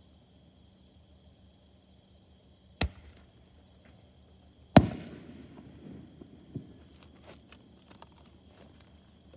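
Fireworks shells bursting: a sharp bang about three seconds in, a louder one near the middle with a rumbling echo, a smaller one after it, then faint crackles. Crickets chirp steadily throughout.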